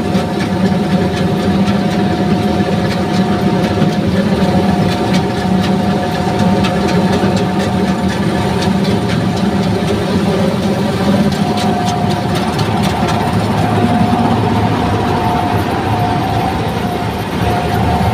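Combine harvester running steadily as it cuts and threshes ripe paddy: a continuous engine drone with a steady whine from the machinery over it.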